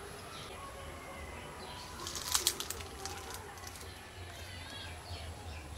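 Small birds chirping now and then in short calls, with a quick burst of sharp clicks or flutters about two seconds in, over a steady low hum.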